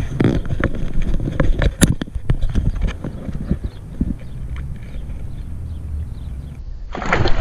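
Close handling noise while a crappie is held: a string of irregular sharp clicks and knocks that thins out after about four seconds. Near the end comes a short, loud splash as the fish is let go into the water.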